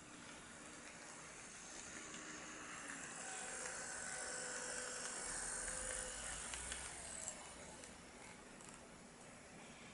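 HO-gauge model electric locomotive running on track: a faint motor whine and wheel noise that swells as it passes close, is loudest about five to seven seconds in, then fades away, with a few small clicks from the wheels on the rails.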